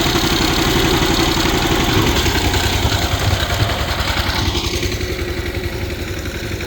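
An engine running steadily with a fast, even beat. About two seconds in its note drops to a deeper throb, and a couple of seconds later the higher hiss fades.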